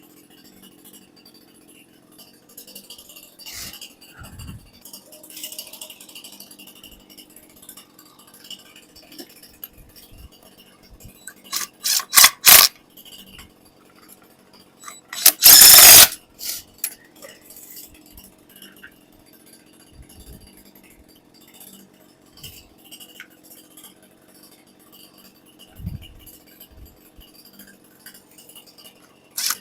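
A battery power tool spinning the wheel nuts on as the ATV wheel is refitted, in a cluster of quick bursts about twelve seconds in and one longer burst of about a second a few seconds later. Light rattling and clinking of nuts and tools in between.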